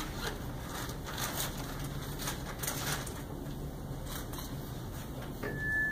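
Quiet room noise with faint scattered soft taps, then near the end a single steady electronic beep from an automated external defibrillator (AED) as it powers on, just before its voice prompts begin.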